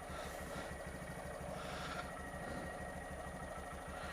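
Honda Z125 Monkey's small single-cylinder engine idling steadily with an even low chug.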